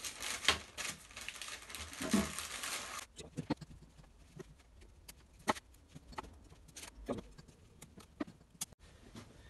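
Rustling handling noise for about the first three seconds, then scattered small metallic clicks and taps as the piston rings are turned on the piston to set their gaps 120 degrees apart.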